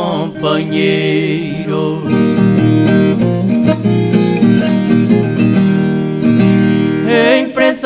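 Moda caipira song: a voice holds the last sung word of a line for about two seconds, then strummed acoustic guitars play an instrumental break, and singing comes back near the end.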